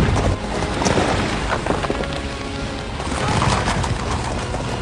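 Film score music over a chase, with a dense clatter of horses' hooves and crashing impacts.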